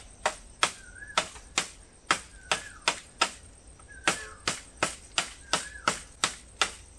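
A blade chopping into green bamboo stems: a steady run of sharp strikes, about two to three a second, with a brief pause just before the fourth second.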